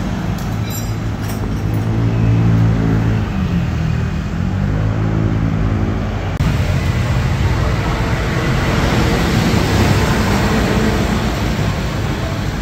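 Road traffic. Vehicle engines run and pass with shifting pitch, then a steady rush of traffic noise follows an abrupt cut about six seconds in.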